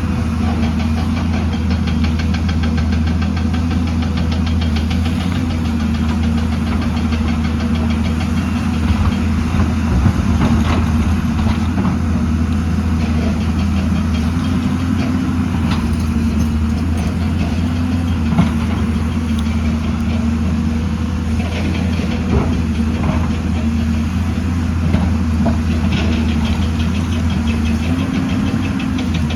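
Excavator diesel engine running steadily, with a few short knocks.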